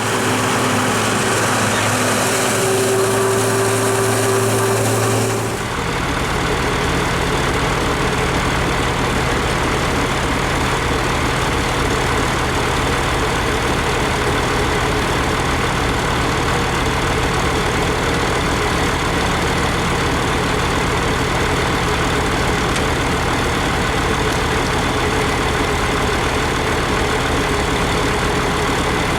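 Old farm tractor engine running steadily while working silage-cutting machinery. About six seconds in the sound changes abruptly: the hiss drops away and a steadier low rumble with a constant hum takes over.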